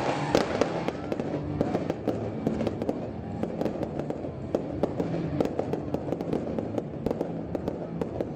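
Aerial fireworks shells bursting in quick succession: a dense run of bangs and crackles, several each second.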